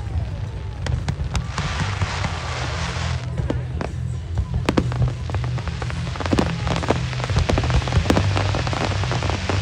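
Fireworks display: aerial shells bursting in many sharp bangs, with a crackling hiss between them, over music with a steady low beat.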